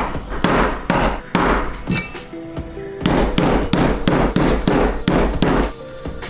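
Maul blows driving a leather hole punch and then a pricking iron through veg-tan leather on a stone slab: about four blows in the first second and a half, a brief metallic clink about two seconds in, then a run of about seven blows at roughly three a second. Background music underneath.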